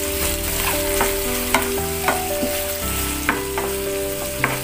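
Freshly added sliced onions sizzling in hot oil in a frying pan as they are stirred and sautéed with a spatula, the spatula clicking sharply against the pan at irregular moments.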